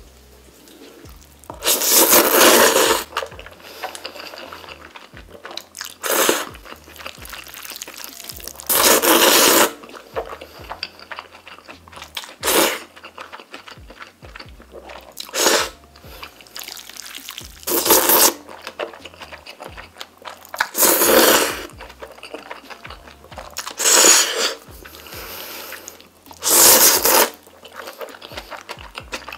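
Loud slurping as long strands of cream-sauce pasta are sucked into the mouth in big mouthfuls, about nine slurps of up to a second each, roughly every three seconds, with quieter chewing between.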